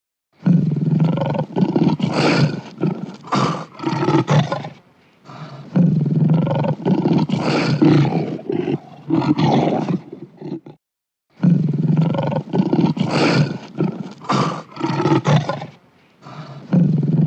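Lion roaring in repeated bouts, each a run of pulsing roars lasting four to five seconds with brief pauses between; a fourth bout starts near the end.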